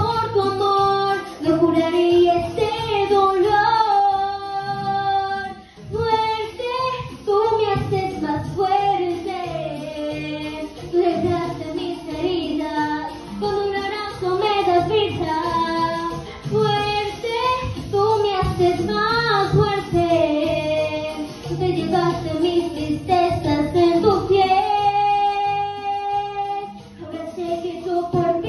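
A girl singing a Spanish-language ballad solo into a handheld microphone over instrumental accompaniment, holding long notes about four seconds in and again near the end.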